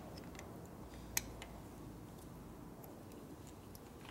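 A few light, sharp clicks of small hand tools and metal parts being handled at a motorcycle engine's ignition points plate, one louder click about a second in, over a faint low hum.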